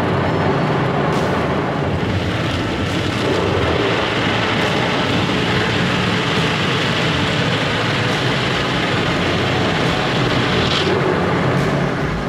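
Automatic car wash heard from inside the car: spinning cloth brush strips and water spray beating against the side window and body in a steady rush, with a low steady hum underneath.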